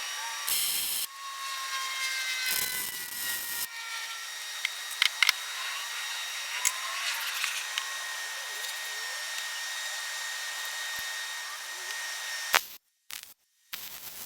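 A power tool running with a steady high-pitched whine, with a few sharp clicks and knocks of the workpiece. It stops abruptly near the end.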